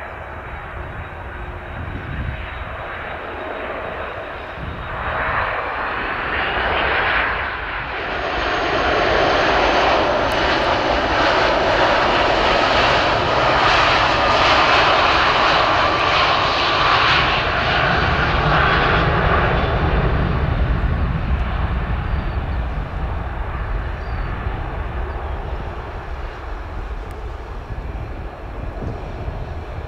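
Boeing 757-200 freighter's jet engines at high power during a touch and go, a roar that builds, is loudest through the middle, then fades away as the aircraft climbs out.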